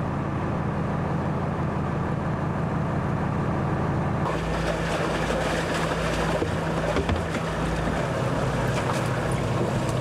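Fishing boat's engine running with a steady hum. About four seconds in the engine tone changes and a hissing splash of water joins it, as flatfish are netted out of the boat's live tank.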